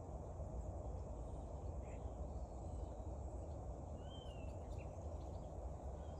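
Quiet outdoor background: a steady low rumble of ambient noise, with a few faint bird chirps.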